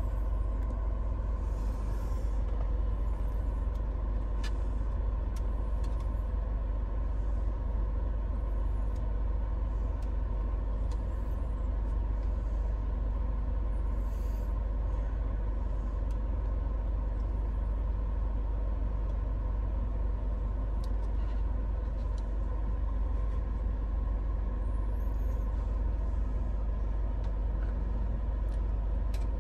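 Steady low hum of the idling Proton X70, its 1.8-litre turbocharged four-cylinder engine and cabin climate fan running, heard from inside the cabin. A few faint clicks come now and then.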